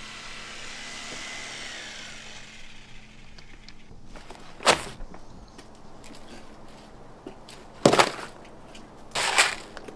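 A small power tool's whine fading and winding down over the first two seconds or so. Then three loud handling sounds: a sharp knock about halfway through, a knock as the old door card is set down on a wooden table near eight seconds, and a longer rustling clatter near the end.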